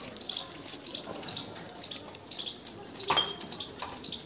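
Water from a garden hose spraying and splashing onto a car's tyre and door panel, a steady hiss broken by small splashes, with one louder, sharper sound about three seconds in.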